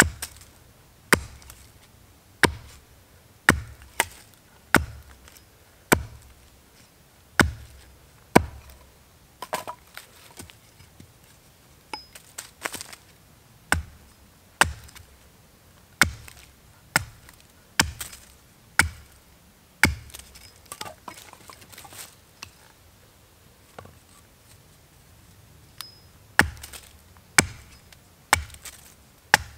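Small axe chopping into the end of a green stick held upright on a wooden stump, sharpening it to a point: sharp wooden chops about one a second. A few weaker taps come a little past two-thirds of the way through, then the strong chops resume.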